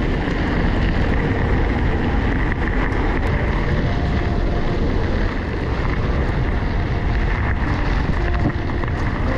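Wind buffeting a GoPro's microphone as a mountain bike is ridden at speed, a steady rushing noise heavy in the low end, with small rattles and ticks from the bike over rough, stony ground.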